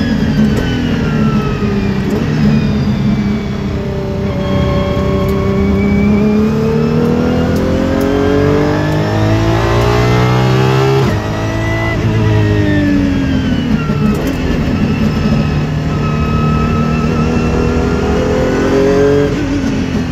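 Apollo Intensa Emozione's naturally aspirated V12, heard from inside the cabin at speed on track. The engine note falls at first, then climbs in one long pull that drops off sharply about eleven seconds in, falls away again and settles into a steadier run with a brief dip near the end.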